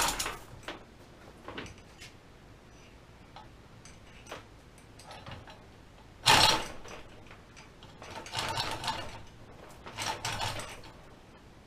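Metal parts of a K.O. Lee cutter and tool grinder rattling and clanking in four short bursts as the saddle is worked loose for removal, the loudest about six seconds in.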